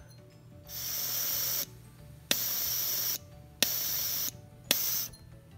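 Air blown through an N280 AC compressor control valve, hissing out in four short bursts; the last three each start with a sharp click. Between the bursts the air is blocked: the energized solenoid pushes the piston up and closes the valve.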